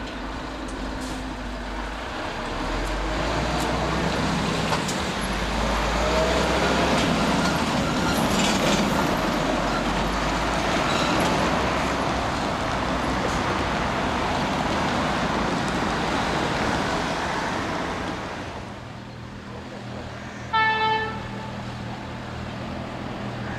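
Steady loud rush and rumble of passing traffic that dies away, then one short single-note horn blast near the end, from an approaching Class 91 electric train.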